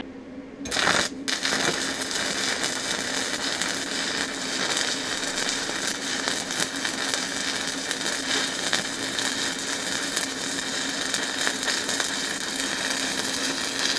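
Stick (shielded metal arc) welding with a 7018 electrode: the arc is struck about a second in with a couple of short sputters, then crackles steadily as the rod is dragged along the joint.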